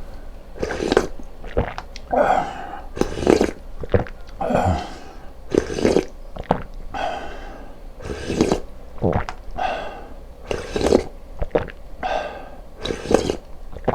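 A person eating close to the microphone: repeated wet mouth sounds of chewing and slurping, about one every second.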